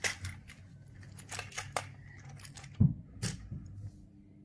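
Clicks and rattles of hard plastic toy-train parts being handled while an AA battery is taken out of the power car's battery compartment, with one louder low thump a little before three seconds in.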